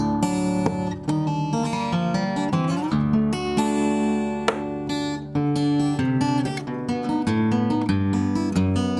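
Solo steel-string acoustic guitar played fingerstyle, with low bass notes under a picked melody.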